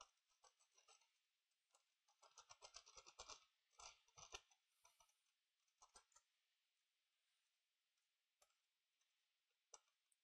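Faint scraping and light clicking of a soldering iron tip worked over laptop motherboard CPU pads while spreading low-melt solder, busiest for a couple of seconds near the middle, then only a few isolated ticks.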